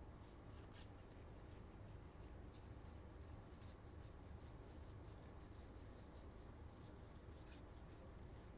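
Faint rustling and light ticks of a stack of trading cards being slid and flicked through by hand, over a low steady room hum.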